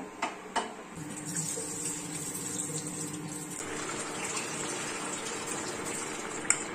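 Two sharp clicks, then from about a second in, milky kheer bubbling at a boil in a steel pan: a steady seething that grows a little halfway through. A spoon clinks against the pan once near the end.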